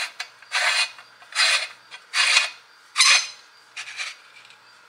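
Parts of a tomato-strainer attachment being twisted into place on a meat grinder: five short scraping rubs, about one a second, the last one weaker.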